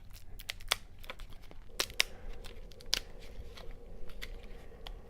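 Packaging being handled and opened: crinkling and tearing, with several sharp clicks and snaps.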